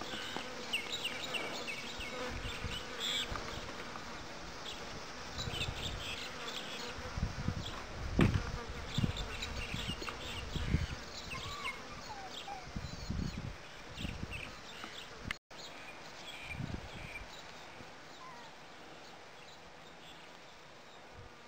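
Border collie puppies not quite four weeks old giving small high squeaks and thin whines as they play, with irregular low bumps, the loudest about eight seconds in.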